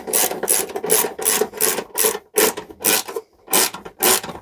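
Hand file rasping back and forth on the aluminium diamond-plate panel, about three strokes a second, with a short pause a little past three seconds in.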